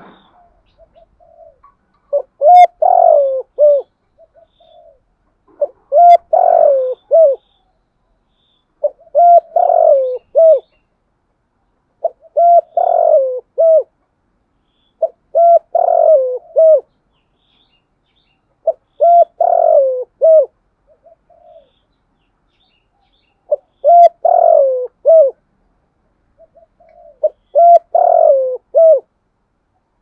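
Spotted dove cooing: a phrase of a few low coos, repeated eight times, about once every three and a half seconds.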